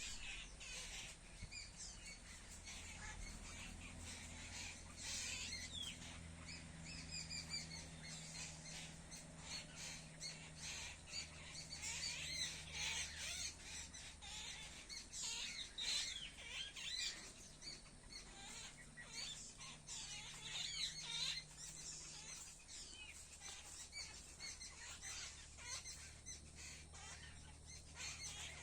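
A flock of birds chirping and squawking: many short, overlapping calls, busiest in the middle, over a faint low steady hum.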